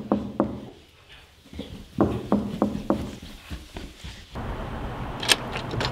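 Quick footsteps coming down carpeted stairs, about three thuds a second. Partway through a steady background hiss comes in, with one sharp click near the end.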